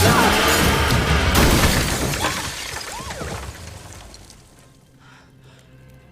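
Film soundtrack: a loud crash with shattering, mixed with music, dying away over about three seconds to quiet.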